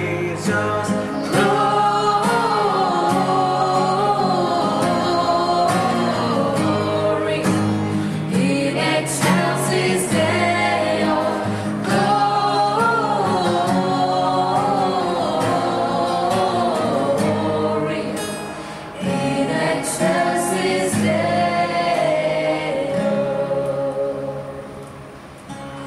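Mixed group of young male and female voices singing a Christmas carol together, accompanied by a strummed acoustic guitar, fading out near the end.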